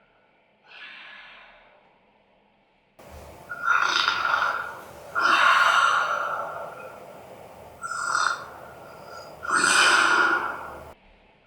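A man snoring: one faint snore about a second in, then, from about three seconds in, four loud snores roughly every two seconds with quieter breathing between them. The sound cuts off shortly before the end.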